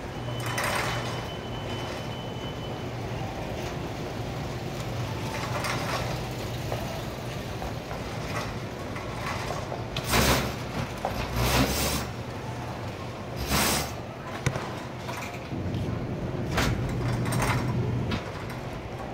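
Shopping cart rolling across a store floor, its wheels and wire basket rattling steadily, with several louder clattering knocks from about halfway through.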